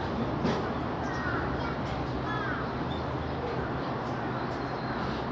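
A few short bird calls over a steady low background hum.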